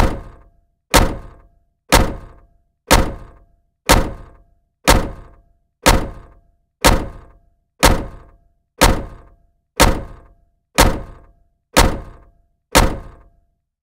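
A heavy thunk, struck fourteen times at an even pace of about one a second, each hit sharp and dying away in well under a second into silence between.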